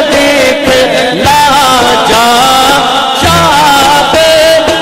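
Music: a man singing a Punjabi devotional song into a microphone, with melodic instrumental accompaniment.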